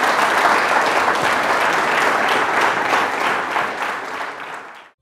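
Audience applauding steadily, easing off a little before being cut off suddenly at the end.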